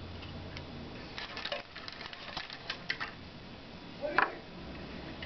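Small clicks and taps as a thin flexible Rogowski coil and its plastic connector are handled and fitted around a component lead on a circuit board, with one louder short knock about four seconds in.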